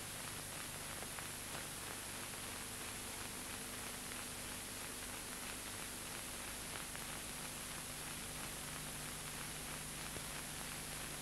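Steady hiss with a faint hum and scattered faint crackles: the background noise of an old film soundtrack between lines of narration.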